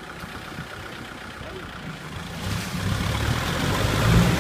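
Kubota M6040SU tractor's diesel engine running under load while tilling a wet paddy field, growing louder about two and a half seconds in as a rushing noise joins it.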